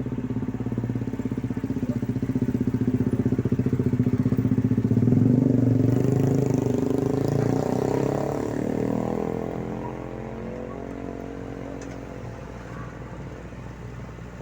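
A motor vehicle's engine passing by, growing louder to a peak about five seconds in, then dropping in pitch and fading, over a steady low engine hum.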